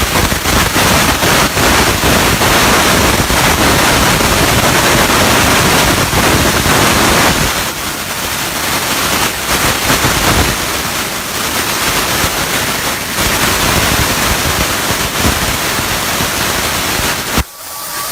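CNC plasma torch cutting steel: a loud, steady hissing rush of the arc with crackle. It cuts out sharply for a moment near the end.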